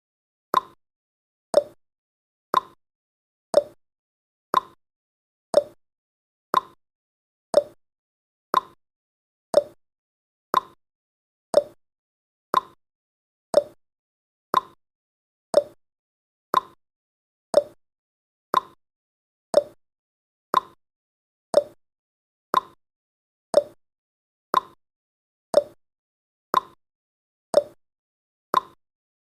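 Countdown timer's ticking sound effect: a short, sharp tick once a second, evenly spaced, each dying away quickly.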